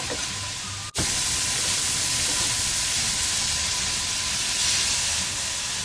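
Cubes of pork loin sizzling in a large frying pan, a steady hiss. It drops out for an instant about a second in.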